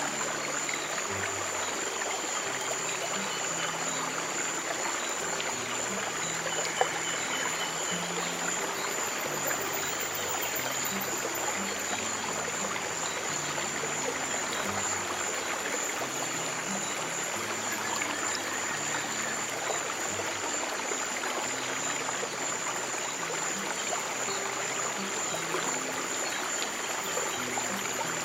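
Running stream water trickling steadily over slow, soft piano with long sustained low notes, and a faint steady high-pitched tone. A single sharp click about seven seconds in.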